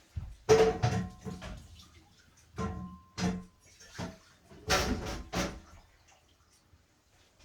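Dishes and pots being handled, clattering in irregular bursts of knocks and clinks with short ringing tones.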